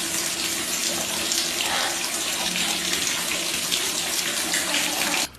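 Water running from a tap in a steady rush.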